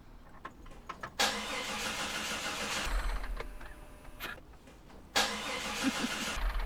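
Volkswagen Vanagon engine being started in two tries: a long burst of about three seconds, a pause, then a shorter burst of about a second and a half.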